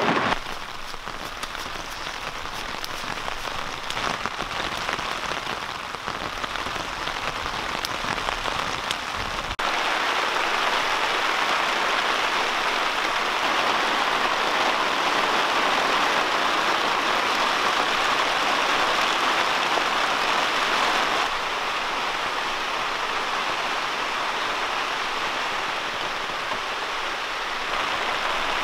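Steady rain with wind, hissing on a camp tarp and tent. The hiss gets louder about ten seconds in and drops back a little about twenty-one seconds in.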